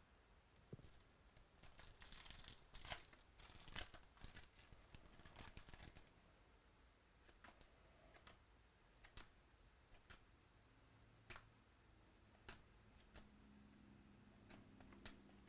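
Trading card pack wrapper being torn open and crinkling for a few seconds, followed by scattered light clicks as the cards are handled.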